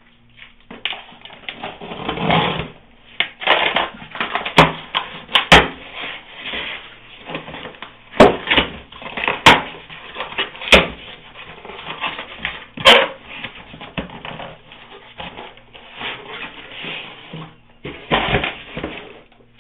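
Shipping packaging being handled and opened: paper and plastic rustling and crinkling, with several sharp cracks and knocks.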